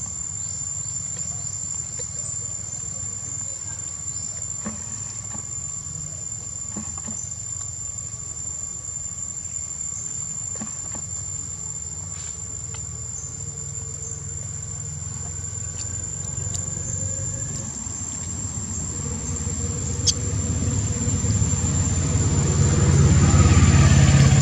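Insects, likely crickets, keeping up one steady high-pitched drone. A low rumble runs underneath and grows louder over the last few seconds.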